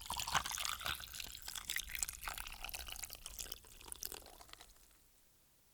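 Liquid being poured, splashing and dripping irregularly, tailing off and stopping about four and a half seconds in.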